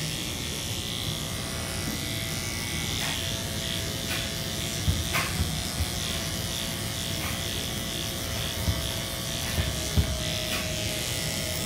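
Electric dog grooming clippers running with a steady buzz, with a few short knocks in between.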